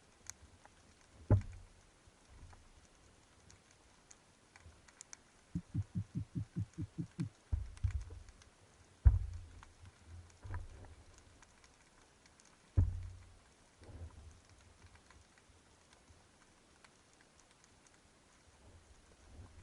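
Underwater recording on a breath-hold dive: a few sharp knocks and faint crackling ticks, with a quick run of about a dozen low knocks a little past a quarter of the way in.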